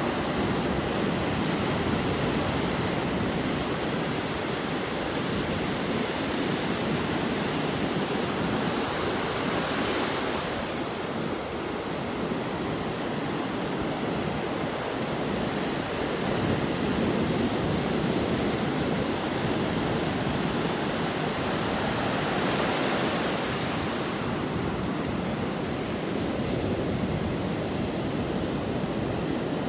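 Ocean surf breaking and washing up the sand in a steady rush of water noise. The hiss swells louder about ten seconds in and again a little past twenty seconds as waves break.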